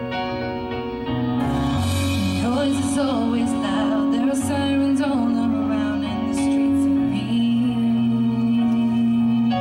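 A woman singing into a microphone over backing music. The accompaniment grows fuller about a second and a half in.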